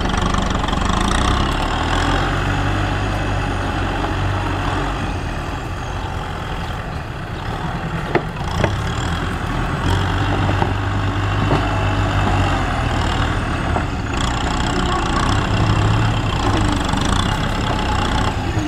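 Tractor diesel engines running steadily as a front-blade tractor pushes soil, with two sharp knocks about eight seconds in.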